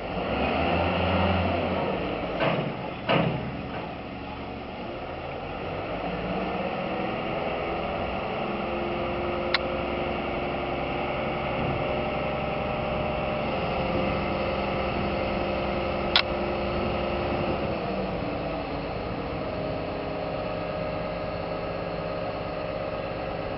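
Kato mobile crane's diesel engine running steadily, with a couple of knocks a few seconds in and two sharp clicks later on.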